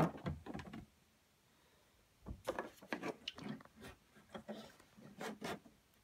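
Hard plastic condensation-water tank of an Electrolux condenser tumble dryer being handled. Plastic knocks and rubbing come in the first second, then a short pause, then a run of clicks, knocks and scraping for about three seconds.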